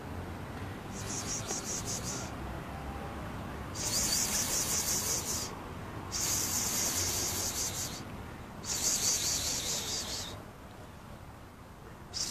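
Insect song: high-pitched trills of rapid pulses, each about a second and a half long, four in a row with short gaps, and a fifth starting at the very end.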